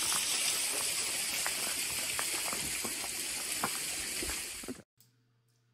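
Water trickling and dripping at a flooded tunnel mouth: a steady hiss with scattered small drips. It cuts off suddenly about a second before the end, leaving near silence with a faint low hum.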